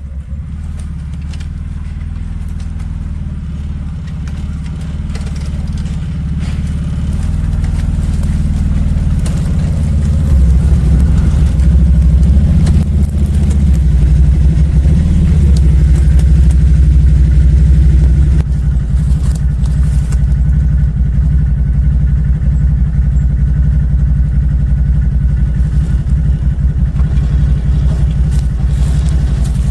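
ATV engine running, growing louder over the first ten seconds or so, then holding steady with a small drop about eighteen seconds in.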